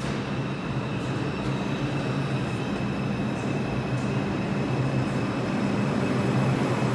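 New York City subway train pulling into an underground station and running past the platform: a steady rumble of wheels and motors with a faint high whine, growing gradually louder.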